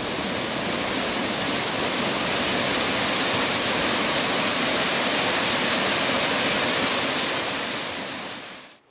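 Waterfall pouring into a plunge pool, a steady rush of whitewater that fades out quickly just before the end.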